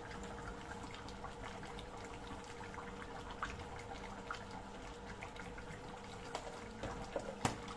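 Chicken stew in coconut milk simmering in a pan, bubbling softly with many small pops over a faint steady hum. A few light clicks come near the end.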